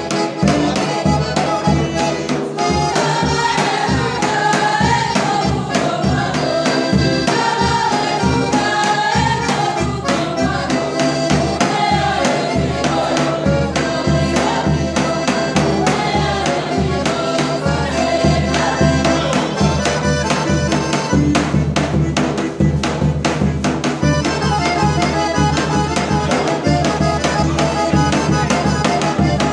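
Large rope-tensioned double-headed bass drum beaten in a steady folk-dance rhythm, with a wavering melody line played over it.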